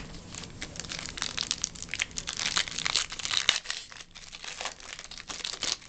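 Foil trading-card pack wrapper being torn open and crinkled by hand: a dense run of irregular crackles, thickest about two to three and a half seconds in, stopping just before the end.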